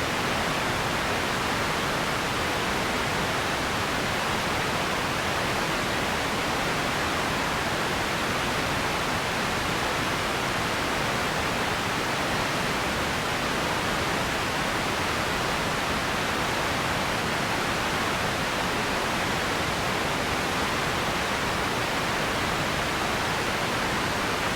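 Radio static: a steady, even hiss that never changes in level, with no tones, clicks or tuning sweeps in it.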